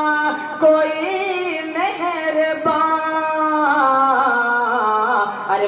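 A man singing a naat solo into a microphone, unaccompanied, with long held notes that bend and turn in pitch.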